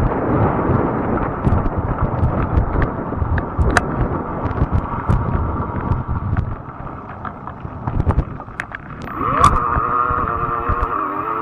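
Wind buffeting the microphone and tyre rumble from a moving fat-tire e-bike, with scattered clicks and rattles. About nine and a half seconds in, a steady pitched whine with wavering lower tones comes in.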